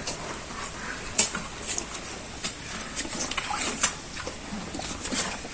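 Cattle eating green fodder stalks from a water-filled concrete trough: irregular crunching and crackling clicks of chewing and wet stalks, several a second.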